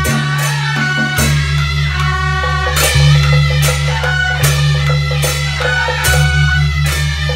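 Taiwanese Beiguan ensemble music: several small suona (ai-a) playing a melody in unison over a steady pattern of percussion strikes, with heavier accented strokes every second or so.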